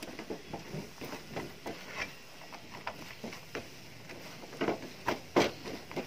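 Plastic slotted spatula stirring peanuts through thick jaggery syrup in a nonstick frying pan, mixing the peanut candy mass on low heat. Irregular scrapes and knocks of spatula and nuts against the pan, a few every second, with a cluster of louder knocks near the end.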